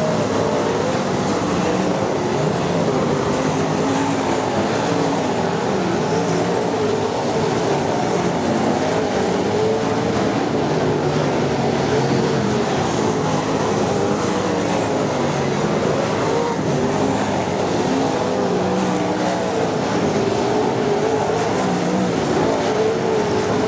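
Winged sprint cars' V8 engines running on a dirt oval, several engines heard together, their pitch rising and falling as the cars circulate.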